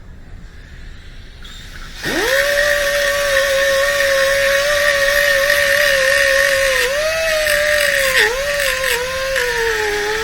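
A small high-speed power tool spins up sharply about two seconds in and runs at a steady whining pitch with a hiss over it. Its speed sags briefly a couple of times and eases slightly lower near the end.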